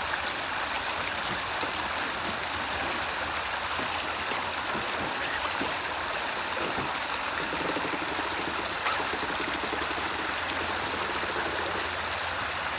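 A stream of water running steadily, a continuous rushing and trickling.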